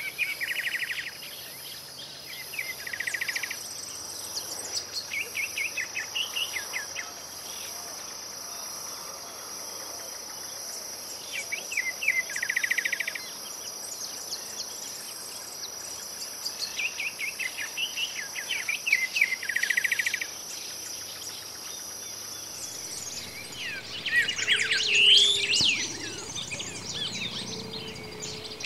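Greyish saltator (Saltator coerulescens) singing: short phrases of quick notes repeated every few seconds, over a steady high insect drone. About 24 s in the drone stops and a louder, busier stretch of song follows.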